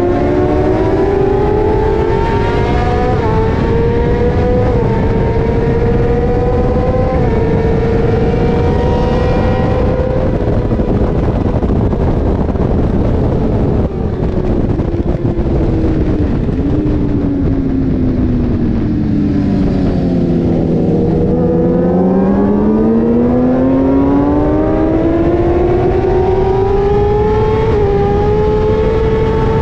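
Sport motorcycle engine at speed under heavy wind rush. The engine note climbs over the first ten seconds and holds, then drops steeply about twenty seconds in as the bike slows for a corner. It climbs again as the bike accelerates out.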